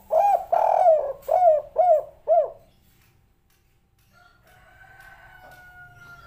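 Spotted dove cooing: a quick run of about six short arched coos over the first two and a half seconds. A fainter, long drawn-out steady tone follows from about four seconds in.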